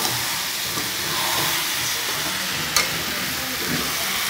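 Potatoes and chickpeas frying in spiced oil, sizzling steadily while a steel spatula stirs and scrapes them around the pan. About three seconds in there is one sharp clink of the spatula against the pan.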